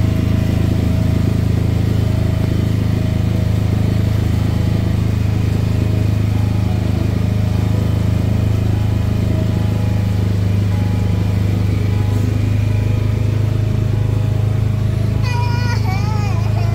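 Motorboat engine running steadily under way, a constant low drone that holds unchanged throughout.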